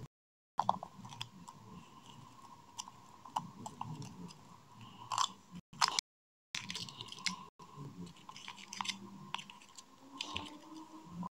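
Foil wrapper of a Kinder Surprise egg crinkling and crackling in irregular bursts as fingers peel it off the chocolate egg. The sound drops out completely twice, briefly.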